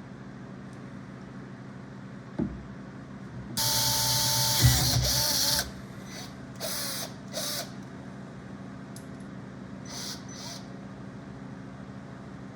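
Small cordless drill, a 12-volt Milwaukee, runs for about two seconds with a whine that drops in pitch as it loads up. It is followed by three short trigger bursts and one more near the end. A single knock comes a couple of seconds before the drill starts.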